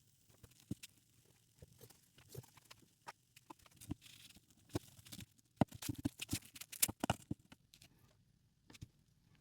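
Irregular light clicks, taps and scrapes, sparse at first, coming thick and fast in the middle, then thinning out.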